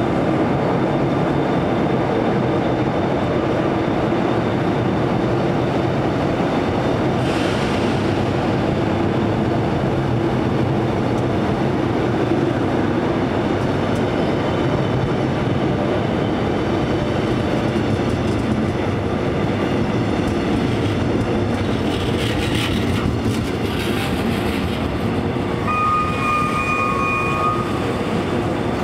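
Mugunghwa Express passenger coaches rolling past as the train pulls out, a steady rumble and clatter of wheels on the rails that eases slightly in the last few seconds. Near the end there is a brief high steady tone.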